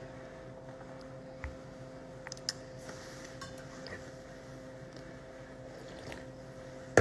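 Quiet steady hum of room tone with a few light clicks and taps, the sharpest about two and a half seconds in. Near the end comes a faint sip from an aluminium soda can.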